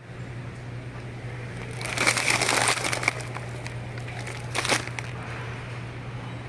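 Crinkling and rustling of plastic packaging, a loud stretch about two seconds in and a short burst near the end, over a steady low hum.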